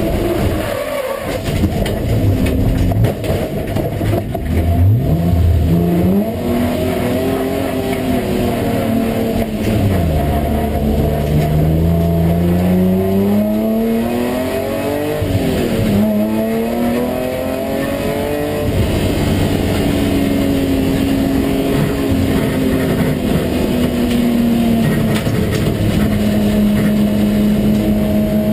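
BMW M3 race car engine heard from inside the cockpit at race pace, revs climbing through the gears and dropping sharply under braking and downshifts, with a quick dip at a gear change about halfway in, then running at a fairly steady pitch near the end. Road and wind noise run underneath.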